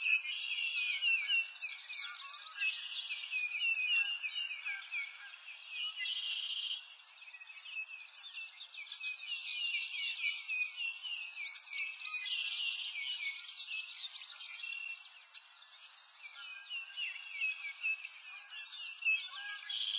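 A dense chorus of small birds singing and chirping, with quick high calls overlapping throughout. The chorus thins briefly around the middle and again about three quarters of the way through.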